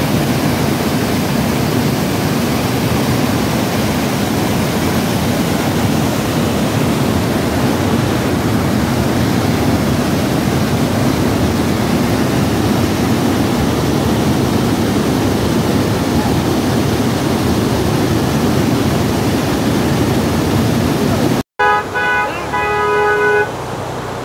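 Loud, steady rush of a fast mountain river's white-water rapids pouring around boulders. Near the end the sound cuts out for an instant, and over quieter running water a horn honks a few short times.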